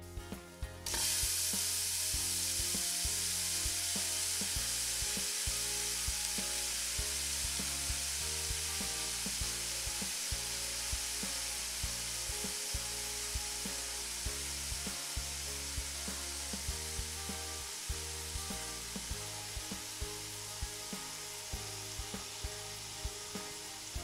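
Seasoned salmon fillets sizzling in hot oil in a nonstick frying pan. The sizzle starts suddenly about a second in, as the fish goes into the oil, and then runs on steadily, slowly easing. Background music plays quietly underneath.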